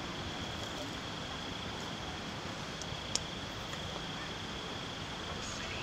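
A steady high-pitched insect drone, typical of crickets, over an even background hiss, with one small sharp click about three seconds in.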